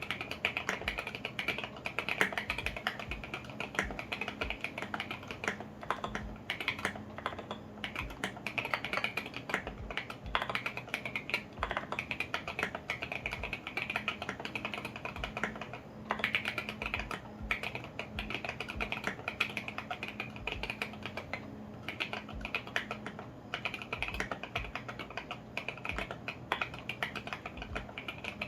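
Fast, continuous typing on a custom 65% mechanical keyboard: a KBDfans Tofu65 acrylic case with lubed and filmed Alpaca V2 linear switches and SA-profile ABS keycaps. The keystrokes run as a dense stream of clicks, broken by a few brief pauses.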